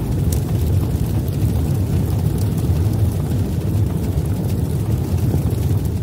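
Steady low rumble of a cinematic intro sound effect.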